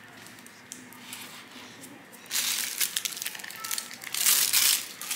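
Crinkling and crumpling, loud from about two seconds in, with lighter rustling and clicks before it.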